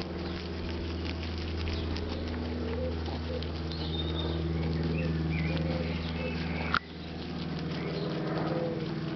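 Two rabbits chewing barley grass close to the microphone, a rapid crunchy ticking of bites. A steady low hum sits underneath and cuts off with a sharp click about two-thirds of the way through.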